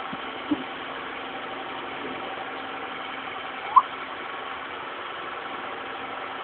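A steady mechanical hum, like a motor or engine running, with one short rising squeak almost four seconds in.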